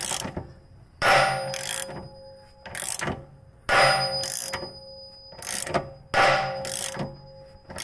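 Bushing press tool being cranked against a rusted-in BMW E90 rear lower control arm inner bushing: a series of loud metallic cracks, roughly one a second, each ringing on. The seized bushing is giving way in jerks, a sign of how rusted or tight it is in the subframe.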